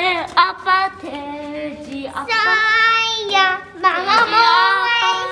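A young child singing in a high voice, with several long held notes.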